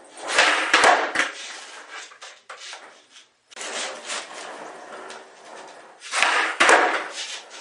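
Skateboard clacking and clattering on a bare basement floor as flip tricks are popped and landed: two loud clusters of board impacts, about half a second in and again around six seconds, with lighter knocks of the board between.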